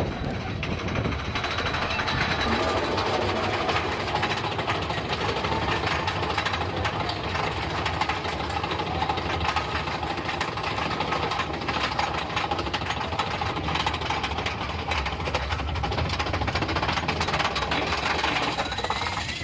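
Big Thunder Mountain Railroad mine-train roller coaster running on its track, with a steady, fast rattling clatter of the cars and wheels.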